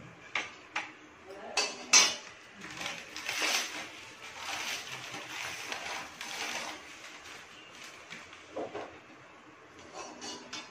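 A spoon clinking against a bowl and a metal kadhai as desi ghee is spooned into the pan: several sharp clinks in the first two seconds, the loudest about two seconds in, then a few seconds of the spoon scraping in the pan, and a few more knocks near the end.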